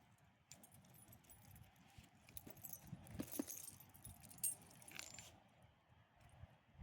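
Faint, light metallic jingling of small metal pieces in several short spurts, with a few small clicks.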